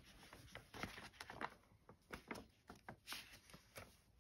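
Faint rustling and soft clicks of a picture book's paper page being turned by hand.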